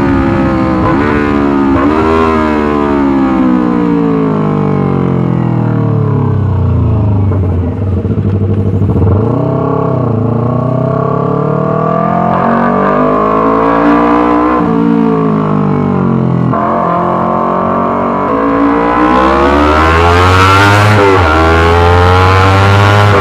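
Yamaha R25's parallel-twin engine through a loud Racefit Slash aftermarket exhaust: the revs fall slowly for several seconds, then climb again in stages, each climb broken by a sudden drop in pitch like a gear change.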